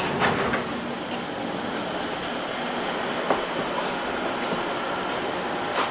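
Moscow Metro 81-717.6/714.6 train running, heard from inside the car: a steady rumble of wheels and motors with a few sharp knocks from the track and car body.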